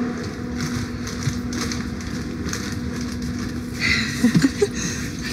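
Backpacks rustling and footsteps while walking through a sleeper train's narrow corridor, over a steady low hum, with a brief louder burst of scraping noise about four seconds in.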